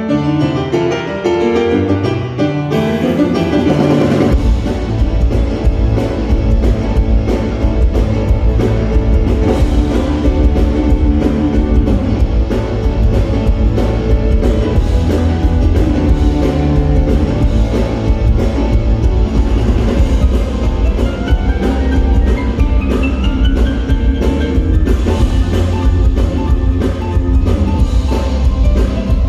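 Instrumental music: a piano-led passage, joined about four seconds in by drums and a low bass that carry on steadily under the melody.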